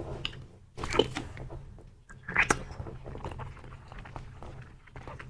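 Soft jelly being slurped out of a plastic stick tube and chewed, close to the mouth. Two loud wet slurps come about one and two and a half seconds in, then soft, squishy chewing.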